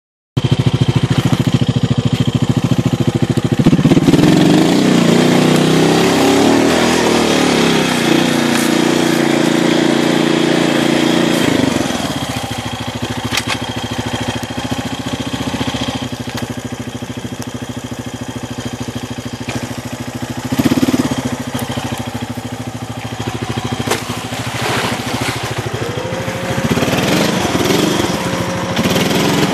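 Honda Foreman ATV's single-cylinder four-stroke engine running. It revs up about four seconds in and runs hard for several seconds, then drops back to a steadier, lower run from about twelve seconds, with a short rev around twenty seconds and more revving near the end.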